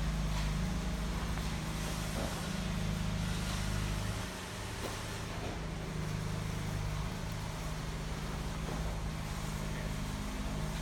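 Heavy engine of concrete-pour equipment running steadily, its note dropping slightly about four seconds in and staying lower.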